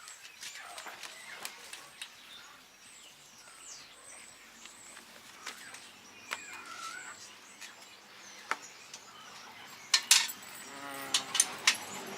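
Small birds chirping in the background, with scattered sharp clicks and knocks, the loudest in a cluster about ten seconds in. A steady pitched motor hum comes in near the end.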